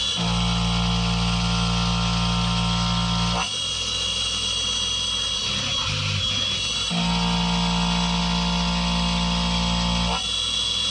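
Skyfire SVM1 mini CNC vertical mill facing aluminium stock: the spindle and face mill run steadily, with two cutting passes of about three seconds each that bring in a strong low hum and a set of steady tones, and a lighter spindle whine with coolant spray between them.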